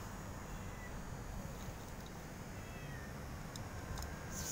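Domestic cat meowing faintly over a steady low background rumble.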